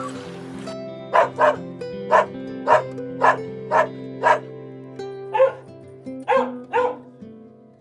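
A dog barking in short, sharp single barks, seven in a quick run and then three more after a short pause, over steady background music.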